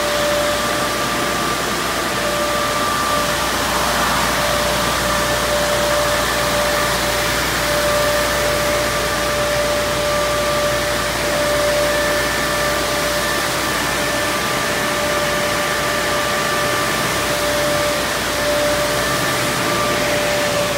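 Car wash tunnel dryer blowers running: a steady rush of air with a steady motor whine over it.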